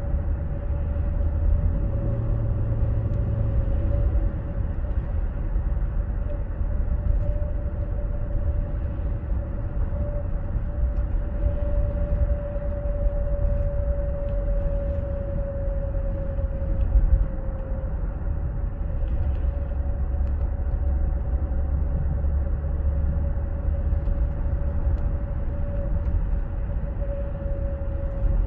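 Drivetrain whine in a 2016 Ford Explorer AWD, a steady mid-pitched tone that wavers slightly, over low road rumble while driving. The owner hears it under very light throttle above 50 mph, stopping when the throttle is released, and suspects the transmission or the power transfer unit (PTU).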